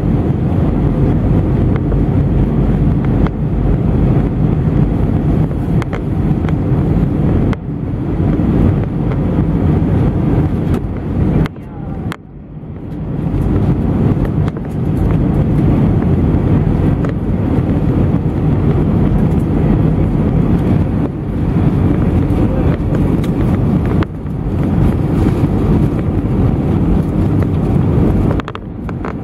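Airliner cabin noise during the descent to landing: a steady, loud rumble of engines and airflow heard from a seat by the wing, briefly dropping in level about twelve seconds in.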